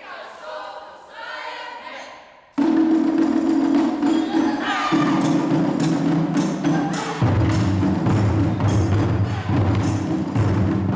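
Taiko ensemble: after a few seconds of brief shouted voices, the chu-daiko drums come in together sharply and loudly about two and a half seconds in, playing a dense, continuous pattern. The drumming deepens at about seven seconds in as lower-pitched drum strokes join.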